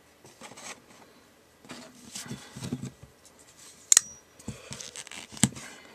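A mailed package being opened by hand: rustling and cutting, with a few sharp clicks, the loudest about four seconds in and another about a second and a half later.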